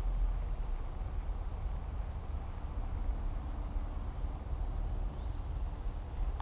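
Wind rumbling on the microphone: a steady, low buffeting noise with no distinct sounds over it.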